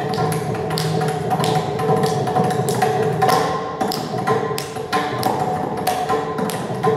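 Mridangam played in quick, crisp strokes over the steady drone of an electronic tanpura, with no voice or violin alongside.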